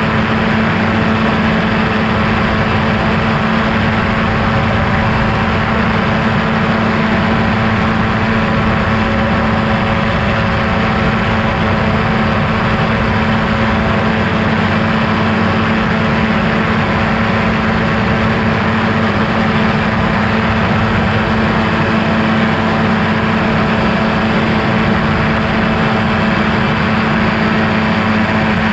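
Quicksilver MXL-2's two-stroke engine and pusher propeller running at a steady cruise power in flight, a loud, unchanging drone with a strong low hum and rushing wind noise.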